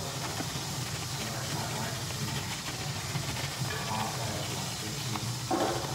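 Kitchen range hood exhaust fan running: a steady low hum with hiss.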